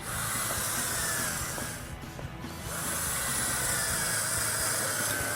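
Electric hand drill with a 1/8-inch bit boring pilot holes: two spells of running with a short break about two seconds in, a steady whine over a hissing noise.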